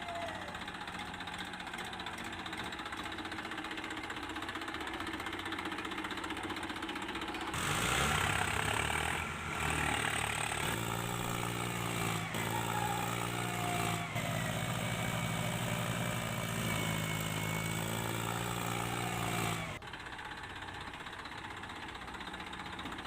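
Tractor engine running with a steady, knocking beat. About eight seconds in a louder engine joins, and it cuts out near twenty seconds.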